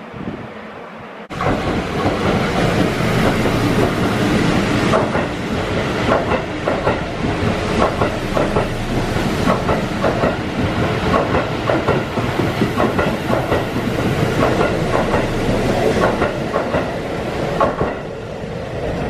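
Keihan 3000 series electric train passing through a station at speed: a steady rumble of wheels on rail with the clickety-clack of wheels running over rail joints. It starts suddenly about a second in and eases off near the end.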